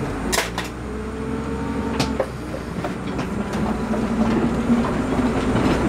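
Converted school bus driving off: a low engine rumble with loose rattles and sharp knocks from inside the bus. The engine note climbs in the second half as the bus picks up speed.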